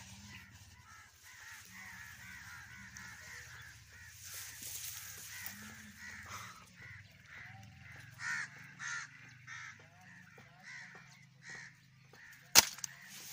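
Birds calling and chattering in the trees, then a single sharp air rifle shot near the end.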